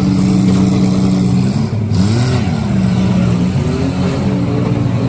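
Demolition derby car engines running, one revving up and dropping back about two seconds in, with smaller rises in engine speed after.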